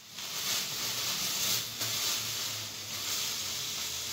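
Clear plastic bags rustling and crinkling as they are handled.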